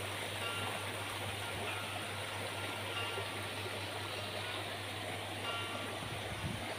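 Shallow rocky stream rushing and splashing over stones in a small cascade, a steady unbroken water noise.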